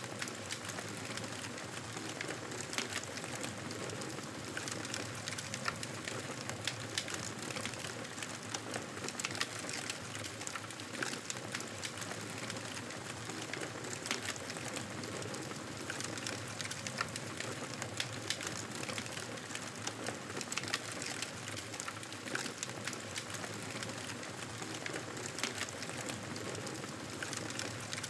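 Campfire burning, wood crackling steadily with frequent sharp pops and snaps.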